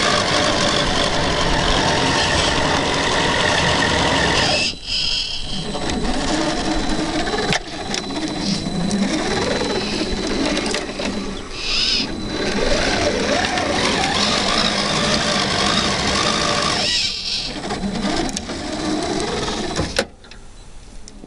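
Electric drive motors and geartrains of 1/10-scale RC Land Rover Defender 90 crawler trucks whining under load on dirt, the pitch rising and falling with the throttle. The whine drops out briefly about five seconds in and again near the end, then falls away sharply just before the end.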